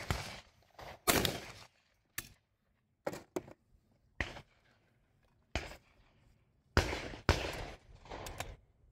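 Shotgun reports on a clay shooting ground: a shot about a second in, scattered sharp cracks and clicks through the middle, and a pair of loud shots about half a second apart near the end.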